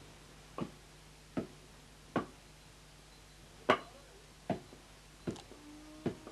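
Pestle pounding in a mortar in a steady rhythm, about one stroke every 0.8 s, with one beat skipped near the middle.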